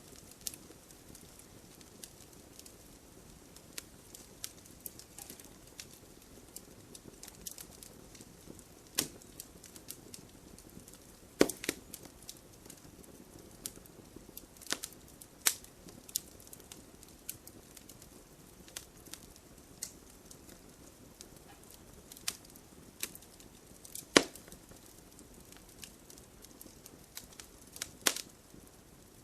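Campfire crackling: a low steady flame noise under frequent small crackles, with a few sharp, louder pops, the loudest about eleven and twenty-four seconds in.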